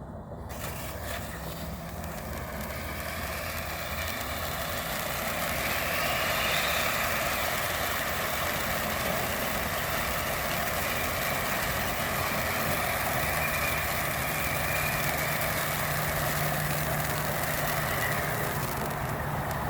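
Handheld Lucky Wheel firework burning: the self-spinning spark wheel gives a continuous hissing rush with a wavering higher tone in it, building up over the first few seconds and then holding steady.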